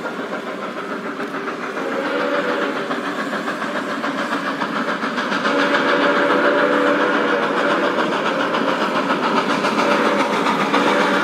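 Steam locomotive running, its exhaust chuffing rapidly and steadily and growing louder. Three times a low steam whistle sounds in long held tones.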